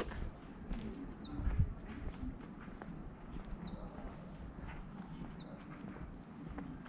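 Small birds chirping, short high calls that slide downward and repeat every second or two over steady outdoor background noise. A few low thuds of walking footsteps come through in the first two seconds.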